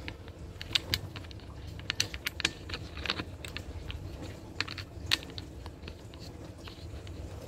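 Irregular clicks and small knocks of a phone camera being handled and set in a flimsy holder, close to the microphone.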